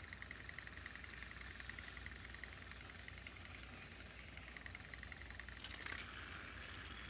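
Battery-powered Trackmaster toy train's small motor and gears whirring with a fast, even pulse as it runs on plastic track. A sharp click comes near the end.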